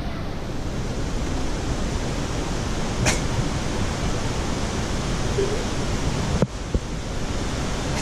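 Steady rushing of a nearby waterfall. A sharp tick comes about three seconds in and a short knock about six and a half seconds in.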